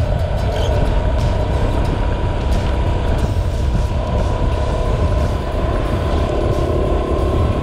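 BMW R1100RT's boxer twin engine running with the bike under way, mixed with heavy wind and road noise on the bike-mounted microphone, and a faint steady whine over it.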